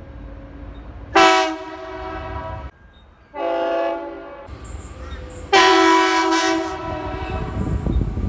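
Queensland Rail train horn sounded three times: a loud blast about a second in lasting about a second and a half, a shorter one around the middle, and a long one from about two-thirds of the way through. A low rumble runs underneath.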